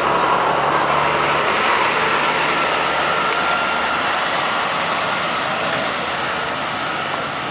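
Loud, steady rushing noise played as a stand-in for the noise of a fracking gas flare, easing off slightly toward the end.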